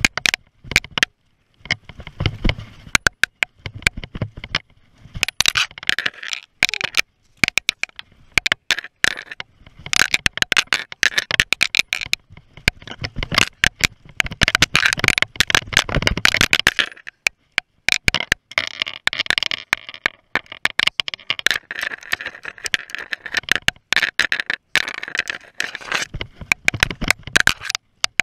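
Downhill mountain bike rattling and scraping down a rough, dry dirt trail. Tyres crunch over dirt and rocks, and the bike gives off a rapid run of sharp clicks and knocks, coming in uneven spells.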